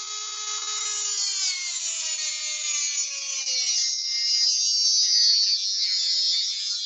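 Ryobi rotary tool with a small cut-off disc cutting a slot into magnolia wood: a high whine that drops in pitch as the disc bites in, under a rasping hiss from the cut.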